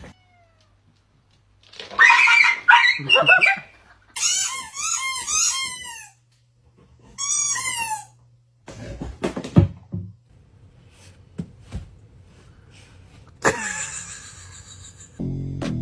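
An animal's calls: a loud burst, then repeated short, high, arching calls, with scattered clicks and a sharp knock later. Music begins near the end.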